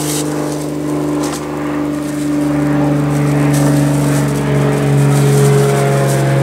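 Propeller airplane flying low overhead: a steady engine drone that grows louder as it comes in.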